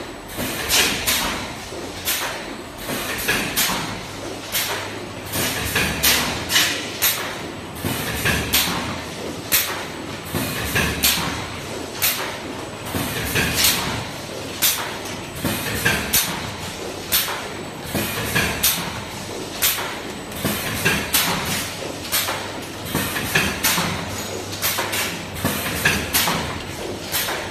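Automatic multi-lane shaped-sachet packing machine running, its mechanism clacking in a quick repeating rhythm, a few sharp knocks a second, over an even mechanical noise.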